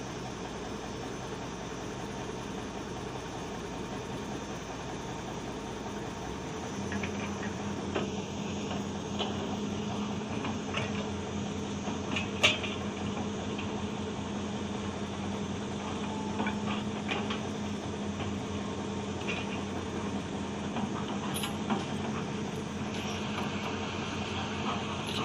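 A heavy diesel machine running steadily, its note changing about six seconds in to a steadier hum, with scattered metal knocks and clanks, the sharpest about halfway through.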